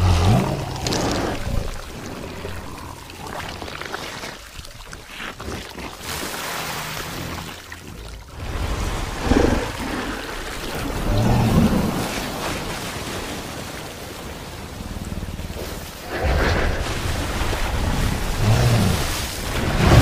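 Movie sound effects of a giant ape fighting a giant squid in water: heavy splashing and surging water with deep rumbling crashes. The sound swells and eases several times, loudest near the start, around ten to twelve seconds in and again near the end.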